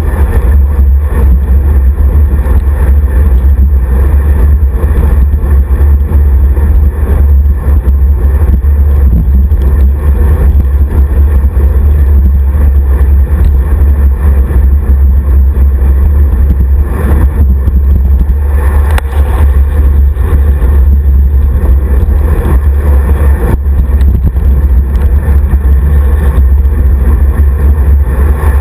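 Loud, steady low rumble of wind and road vibration on the microphone of a camera mounted on a road bike's handlebar, riding in a group of cyclists.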